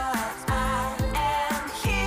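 Background pop song with singing over a steady kick drum beat.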